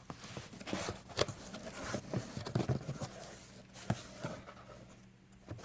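A cardboard box being opened and its contents handled: irregular rustles, taps and clicks, with a sharper click a little before the four-second mark.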